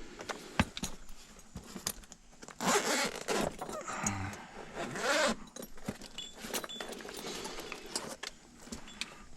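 A technician handling tools at an outdoor unit: scattered sharp clicks and light clatter, with a louder zipper-like rasp about three seconds in and a shorter one around five seconds.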